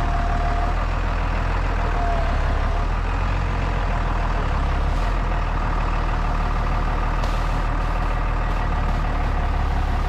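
Farm tractor's diesel engine running steadily as its front-end loader pulls a plastic-wrapped round bale out of the row, with a faint steady whine over the low engine rumble.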